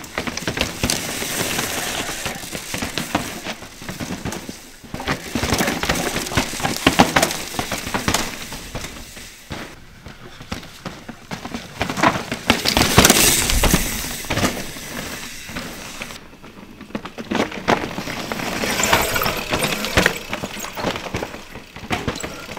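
Mountain bikes riding past over a dirt and root trail: tyres crunching on loose dirt with a crackle of sharp clicks and rattles, swelling and fading four times as riders go by.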